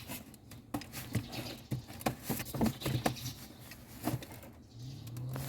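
Scattered light clicks and taps. Near the end a low steady hum starts and rises a little in pitch: the refrigerator's brushless DC fan motor spinning up on power, showing the fan works.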